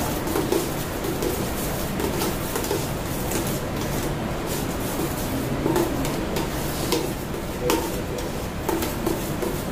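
Hands mixing in a stainless-steel pot, making irregular soft clicks and scrapes against the metal over a steady low hum.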